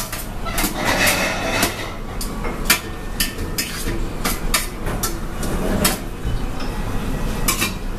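Irregular sharp clinks and clatter of dishes and utensils in a busy breakfast restaurant, over a steady background din.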